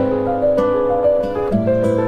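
Background music: a gentle instrumental with plucked notes over a held bass note.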